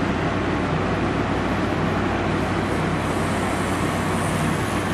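Electric tattoo machine running with a steady buzz as the needle works ink into the skin.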